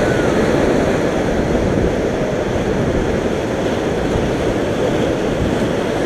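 Whitewater rapids rushing and churning around an inflatable raft, a loud, steady wash of turbulent river water heard up close from the raft.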